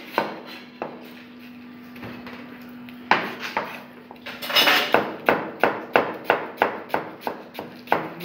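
Chef's knife chopping shredded cabbage on a plastic cutting board. A few separate cuts with a steady low hum come first, then from about halfway in an even run of quick knife strokes, about three a second.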